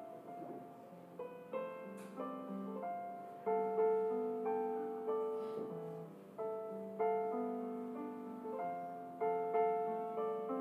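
Background piano music: a gentle melody of separate notes and chords, each note fading after it is struck.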